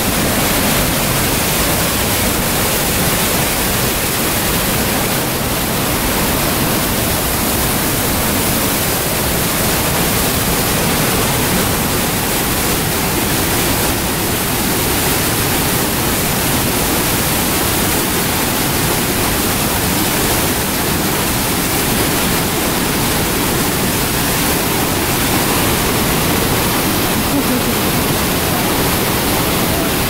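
Waterfall roaring close at hand: a loud, steady, unbroken rush of heavily falling water.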